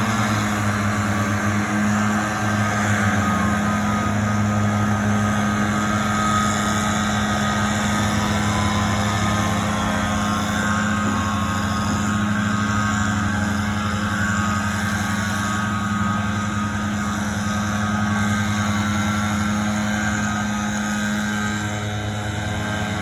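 Gas-powered lawn equipment engines, leaf blowers among them, running steadily at once in a continuous drone, with fainter engines rising and falling in pitch behind it.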